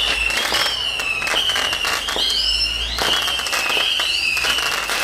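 Fireworks going off in a dense run of cracks and bangs, with a steady high whistling tone that wavers and briefly slides upward about once a second.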